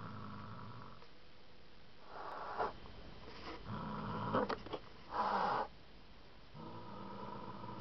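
A domestic cat growling low with a tissue packet held in its mouth: a steady rumble that fades about a second in and comes back near the end. In between comes crinkling and crackling of the packet's plastic wrapper, with a louder rustling burst about five seconds in.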